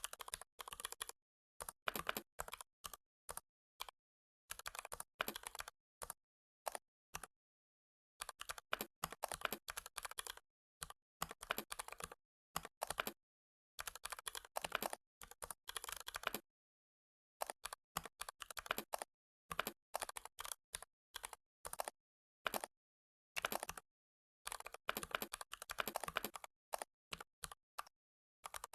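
Typing on a computer keyboard: quick runs of keystrokes in bursts of a second or two, broken by pauses of dead silence.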